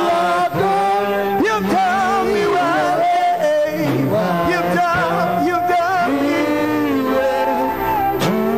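Worship singing with musical accompaniment: a sung melody holding long notes that waver and glide, with no spoken words.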